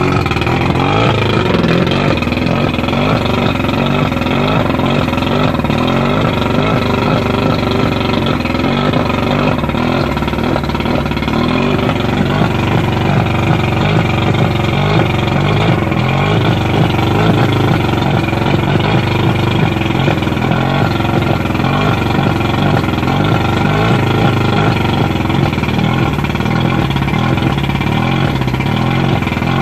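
1989 Mercury 100 two-stroke outboard motor running steadily at a fast idle of roughly 1200–1400 rpm, with its cowling off.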